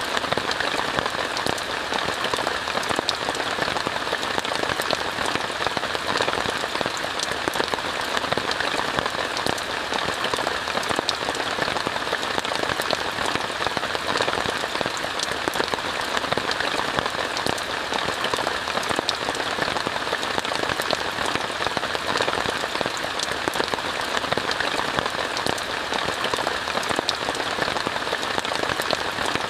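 Steady rain falling on a tent: a dense, even hiss of many small drop hits that keeps on without a break.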